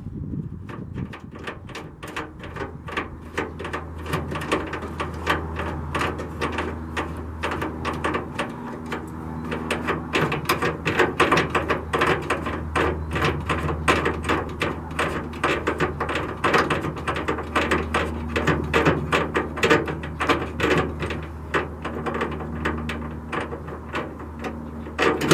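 A socket ratchet clicking rapidly and almost without pause as 10 mm bolts are unscrewed from the underside of a Jeep hood, over a steady low hum.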